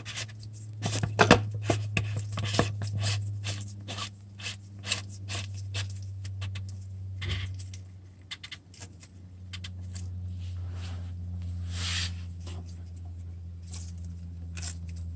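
Scattered clicks and scrapes of hand work on the engine, most likely the plastic oil filter housing cover on a Renault TCE 90 engine being fitted and screwed back down over the new filter. A steady low hum sits underneath.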